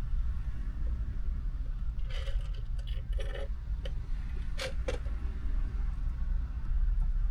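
Small clicks and rattles of objects being handled inside a car, a cluster about two to three and a half seconds in and two sharp clicks near five seconds, over a steady low rumble.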